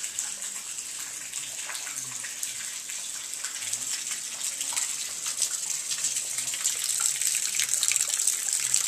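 Steady rain falling and splattering on wet concrete, a high hiss dotted with drip ticks, growing louder toward the end.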